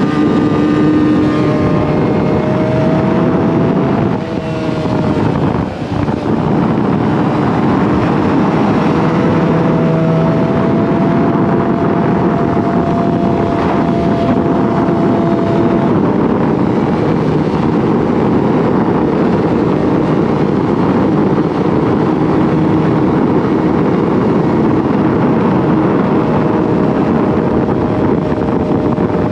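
Yamaha R6's inline-four engine running steadily while riding, with wind rushing over the camera microphone. The engine note dips briefly about four to six seconds in, then holds steady again.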